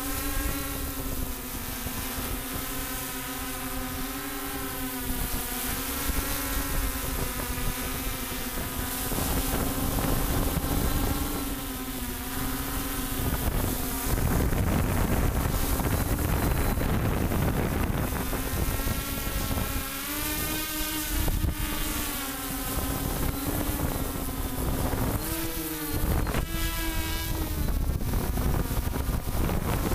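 Multicopter's electric motors and propellers humming steadily, the pitch wavering up and down as it manoeuvres and rising briefly near the end, with wind rumbling on the microphone.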